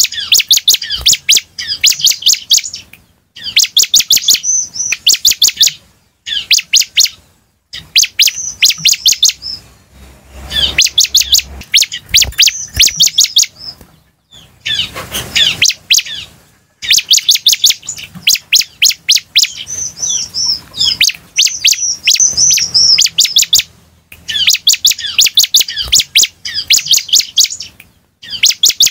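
Bar-winged prinia (ciblek) singing loudly in fast, sharp chirping phrases, about eight to ten notes a second, each phrase lasting one to two seconds with short pauses between. There is a brief rush of noise about halfway through.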